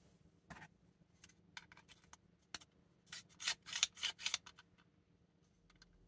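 Small plastic crossbow parts being handled and trimmed: scattered clicks and scrapes, then a quick run of short rasping cuts or scrapes about three to four and a half seconds in.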